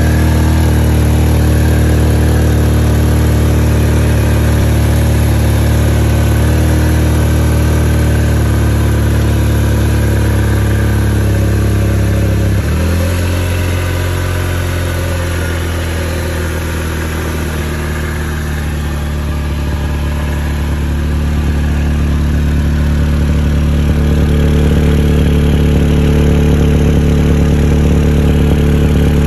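2004 Honda Accord's engine idling steadily. Its tone shifts slightly about 13 seconds in, and it sounds a little quieter for several seconds before coming back up.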